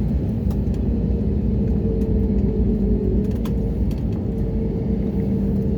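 Airliner cabin noise after landing: a steady low rumble with a constant engine hum and a few faint clicks.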